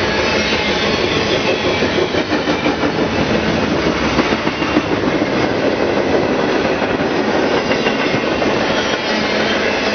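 Double-stack intermodal freight train passing close at speed: a steady loud rumble and clatter of steel wheels on rail, turning choppier for a few seconds in the middle.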